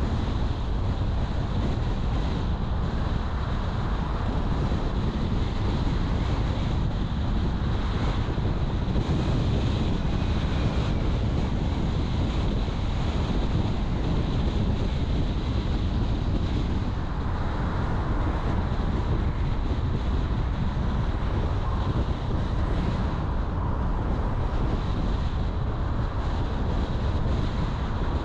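A car driving at a steady speed: continuous tyre and wind noise with a low rumble, without distinct events.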